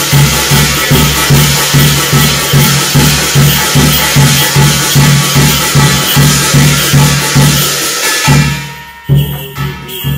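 Korean shamanic gut ritual percussion: a drum beating steadily about two and a half strokes a second under a continuous bright clash of cymbals and jingling. The playing breaks off about eight and a half seconds in, then one more stroke is followed by softer playing.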